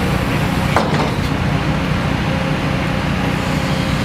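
Heavy machinery engine running steadily with a low rumble, and a couple of sharp metal knocks about a second in as debris is handled.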